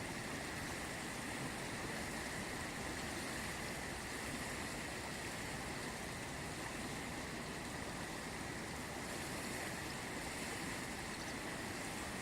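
The Ganges river flowing, a steady rushing of water that holds even throughout with no distinct splashes or breaks.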